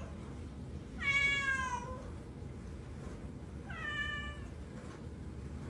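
Domestic cat meowing: a long, slightly falling meow about a second in, then a shorter, quieter one near the four-second mark, over steady low background noise.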